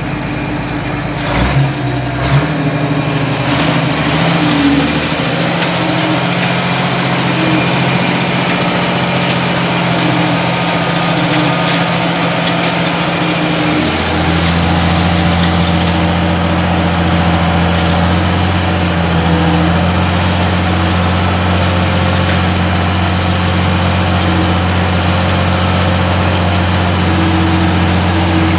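Ursus 1224 tractor's diesel engine running steadily. A few knocks come in the first few seconds, and about halfway through the engine note becomes deeper and stronger.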